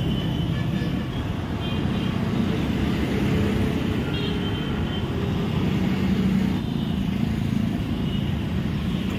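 Steady road traffic noise, a continuous low rumble of passing cars and motorbikes.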